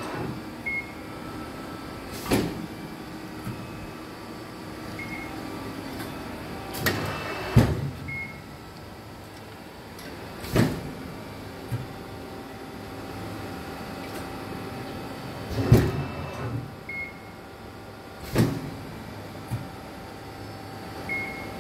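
Amada RG-80 CNC hydraulic press brake running under power: a steady hydraulic pump hum, a sharp mechanical clunk every few seconds as the ram and backgauge move, and several short high beeps.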